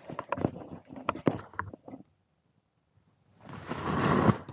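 Rustling and brushing of clothing and ground-blind fabric close to the microphone as the hunter moves. About two seconds in, everything drops out for a second, then one louder swish of fabric lasting about a second comes near the end.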